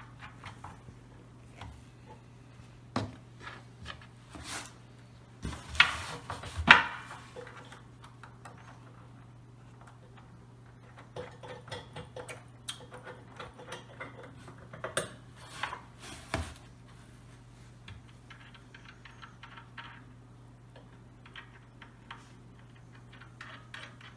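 Scattered metallic clicks, clinks and knocks of a steel foosball table leg and its bracket hardware being fitted and bolted on by hand, loudest about six to seven seconds in. A low steady hum runs underneath.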